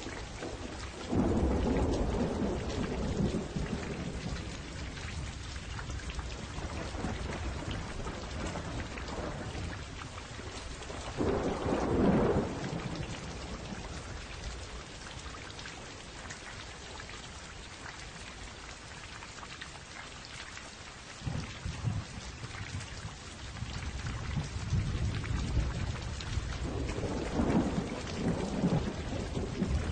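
Steady rain with rolls of thunder: a low rumble about a second in, a louder one around twelve seconds in, and another near the end.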